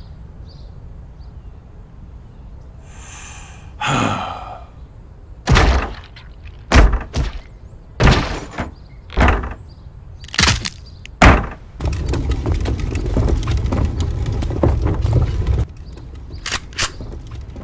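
Cartoon sound effects of bloody body parts being dumped into a plastic wheelie bin: a short falling swish, then about six heavy thunks roughly a second apart, followed by a few seconds of steady low rumbling.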